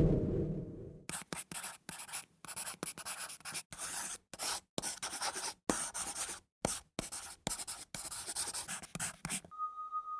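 A pen scratching across a sheet of paper in quick, uneven strokes, writing by hand. A low rumble dies away just before the writing starts, and a steady high tone comes in near the end.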